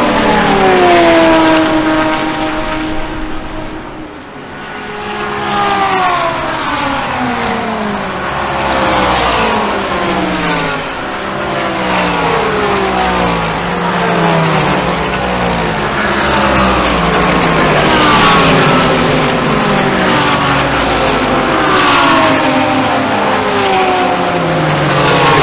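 A stream of GT3 race cars passing at full speed one after another, each engine note dropping in pitch as the car goes by. The traffic thins briefly about four seconds in.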